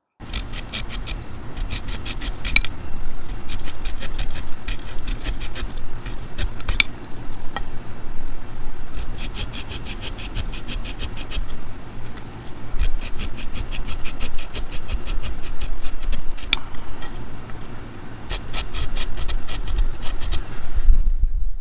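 Small folding saw blade of a Zippo fire-starting multi-tool sawing back and forth through a thin branch, in several runs of fast rasping strokes with short pauses and a low rumble underneath. The teeth are dull and the cut goes slowly.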